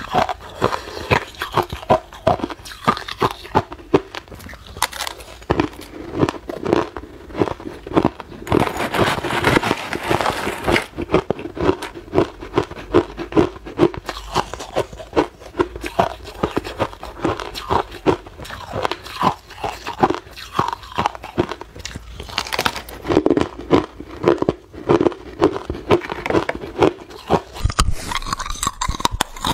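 Hard clear ice being bitten and chewed close to the microphone: a dense run of sharp cracking crunches, with a thicker grinding stretch about a third of the way in.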